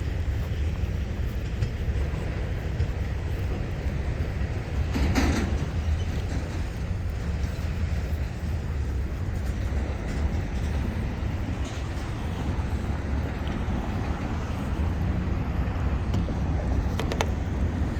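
EMD diesel freight locomotives running with a steady low rumble as the train moves off, with a short burst of noise about five seconds in.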